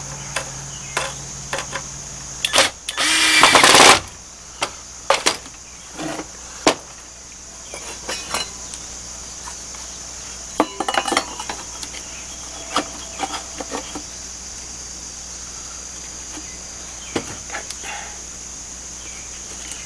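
A drill runs in one burst of about a second and a half, followed by scattered knocks and clicks of wood and tools being handled. Crickets chirr steadily in the background throughout.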